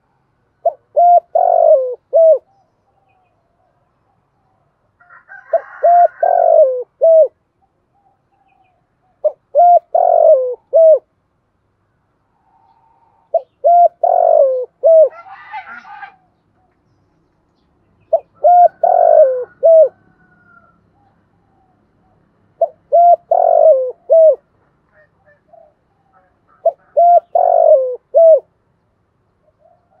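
Spotted dove cooing: seven phrases about four seconds apart, each a short run of coos with a longer, falling note near its end.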